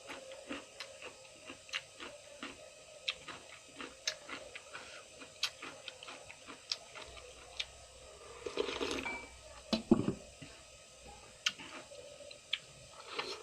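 Close-up chewing of food: an irregular run of crisp crunches and mouth clicks. A louder rustling stretch comes about eight and a half seconds in and a sharp knock about a second later.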